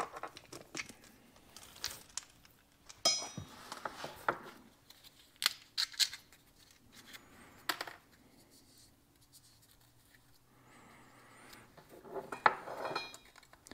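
PTFE thread sealing tape being handled and wrapped onto hydraulic hose-end fittings: a few short, scratchy tearing sounds with quiet gaps between them.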